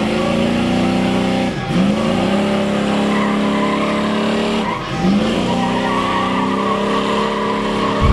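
Square-body Chevy stepside pickup doing a burnout: the engine is held at high revs while the rear tyres spin and squeal. The revs drop briefly and snap back up twice, about three seconds apart.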